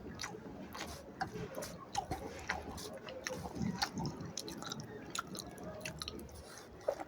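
Person chewing a mouthful of rice and fish curry: a string of short, irregular wet mouth clicks and smacks.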